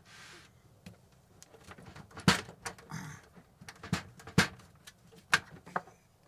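A string of irregular sharp clicks and knocks from hard objects being handled, with a couple of short scrapes; the louder knocks come about two, four and a half and five and a half seconds in.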